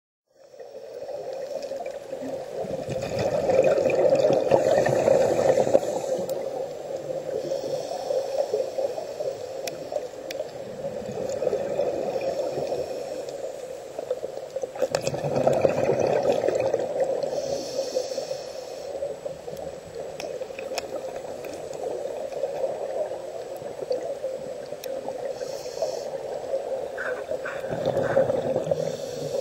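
A scuba diver breathing through a regulator underwater. Exhaled bubbles gurgle and rumble in swells every few seconds, with short hisses of inhalation between them.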